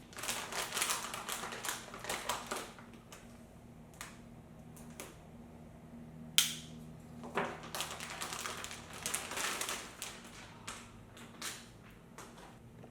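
Runs of quick small clicks and taps from hands working on PC components and cables, with one sharper click about six seconds in.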